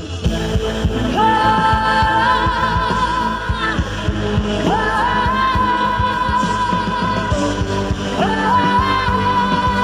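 A male singer's high wordless vocalise over a band with a steady drum beat. He sings three long held notes, each sliding up into place and held with vibrato.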